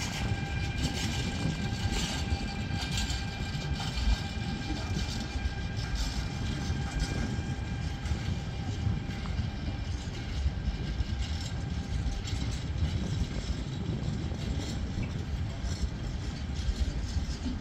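Train rolling past, its steel wheels rumbling and clicking over the rails, with a faint steady whine running through it.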